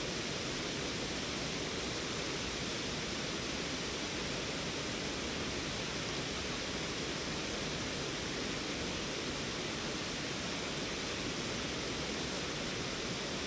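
Water pouring over a small creek waterfall, a steady, unbroken rush.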